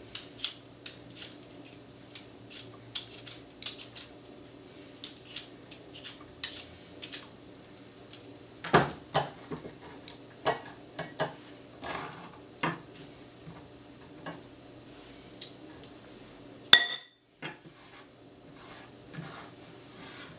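Metal kitchen utensils clicking and tapping irregularly as fresh ginger is peeled and cut on a cutting board. There is a louder knock about nine seconds in, and a ringing metal clink near the end.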